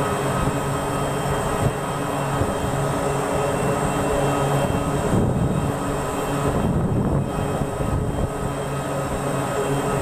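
Turboprop engines of a Grumman C-2 Greyhound running steadily: a constant droning whine over a broad rushing noise, the upper hiss thinning twice about halfway through.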